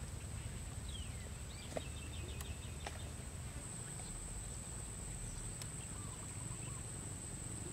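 Outdoor pond-side ambience: a steady, high-pitched insect drone, with a bird giving a short rapid trill about two seconds in and a few other chirps, over a low rumble.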